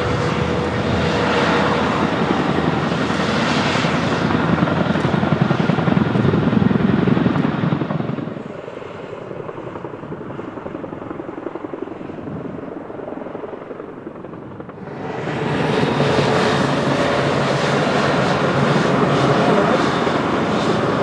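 Boeing CH-47 Chinook tandem-rotor helicopter flying low: the beat of its two rotors over its twin turbine engines, loud at first, dropping away for several seconds in the middle, then loud again as it hovers just above the ground.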